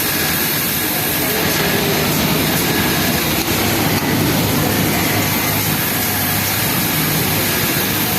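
Industrial flatlock sewing machine running steadily, a continuous mechanical whir mixed with the din of other machines.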